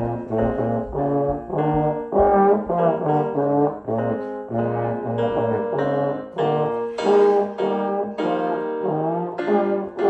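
Trombone playing a melody note by note over a piano accompaniment.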